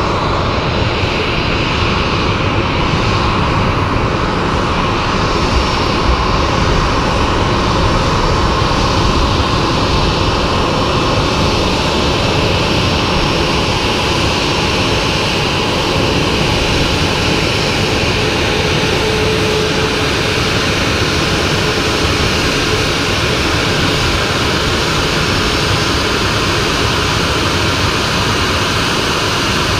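Boeing 737-800 jet engines running at low taxi power as the airliner rolls in toward the stand, a steady jet engine sound that holds level throughout.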